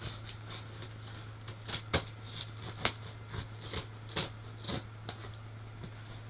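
Cardboard shipping box being opened and its paper packing handled: irregular rustles, scrapes and clicks, the sharpest about two and three seconds in.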